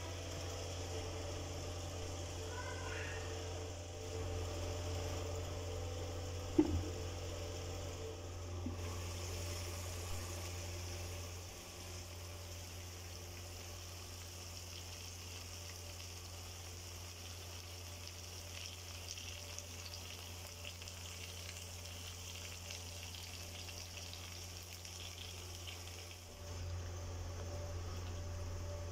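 Chicken and potato curry sizzling and bubbling in a wok over a steady low hum, with faint crackling through most of it. There is a single sharp clack about six and a half seconds in.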